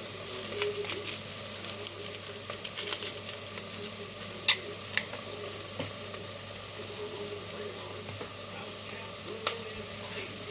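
Onions sizzling steadily in a frying pan, with scattered sharp clicks and pops, the two loudest about halfway through.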